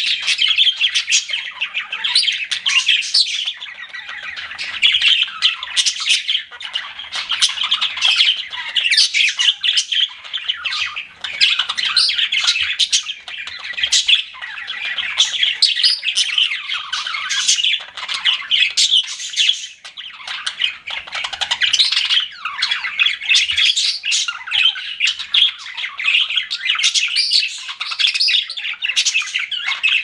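Pet budgerigars chirping, a dense, unbroken stream of short, quickly changing notes.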